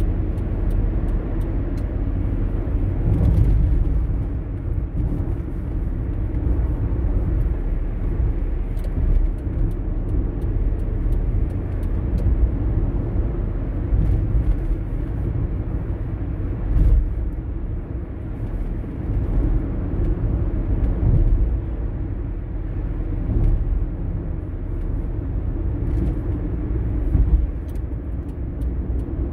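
A car driving at steady speed: an even, low rumble of tyre and engine noise, with scattered faint ticks.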